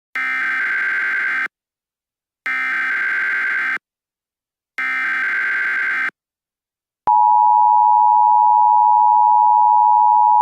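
Emergency Alert System SAME header: three bursts of buzzy digital data tones, each just over a second long, with short gaps between them. About seven seconds in, the steady, loud two-tone EAS attention signal starts abruptly.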